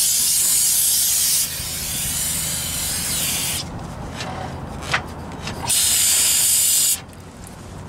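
Aerosol cleaner spray can hissing onto a brake caliper and rotor, washing off spilled brake fluid. One long spray eases off about a second and a half in and stops a couple of seconds later, then a second short blast comes near the end.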